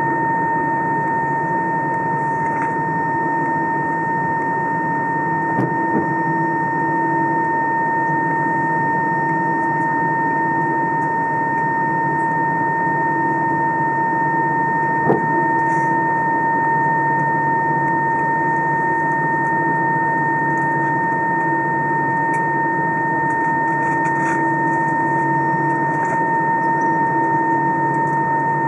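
Cabin noise inside an Airbus A319 taxiing: engines at idle and air conditioning make a steady rumble with a constant high whine over it. Two light knocks come about six and fifteen seconds in.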